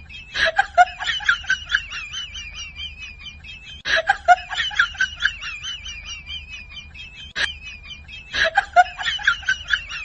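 Bird-like clucking and chirping calls over a steady high twitter. The same short phrase of calls repeats three times, about four seconds apart, with one sharp click near the middle.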